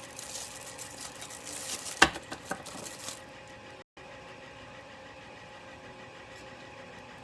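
Hand work on the 3D printer's extruder with tools and parts: rustling and handling noise with a sharp click about two seconds in and a few lighter clicks after it. Then a faint, steady hum.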